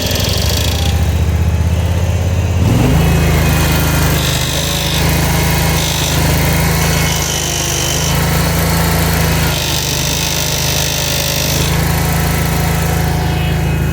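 Ferris IS3100Z zero-turn mower running, its engine note shifting about three seconds in and then holding steady, with a high whine that comes and goes several times. This is the loud noise that comes with engaging the left hydrostatic drive, a fault that also shakes the mower.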